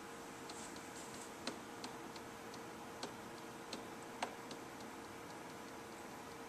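A series of light, irregular clicks and taps, most likely a fingertip tapping and dragging on the SMART Board's interactive surface, over a faint steady hum.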